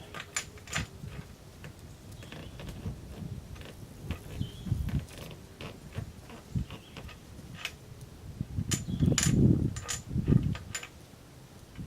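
The trapdoor breech of a Springfield Model 1866 Allin conversion rifle being worked by hand: scattered metallic clicks and clacks with handling noise, busiest near the end, as the shooter deals with a malfunction.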